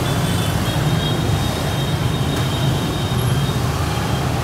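Steady street traffic: many motorbike engines running as they pass on a busy road.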